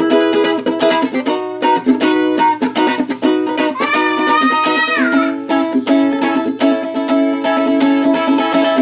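Acoustic string instrument strummed in a steady rhythm, an instrumental break in a song. A held high note with a wavering pitch joins about four seconds in and slides down about a second later.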